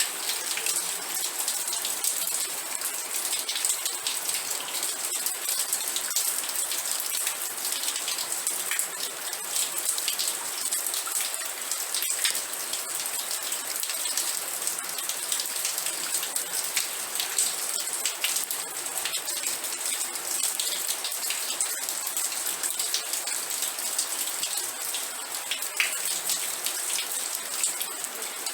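Steady rain falling, a dense hiss with many fine individual drop ticks and no letup.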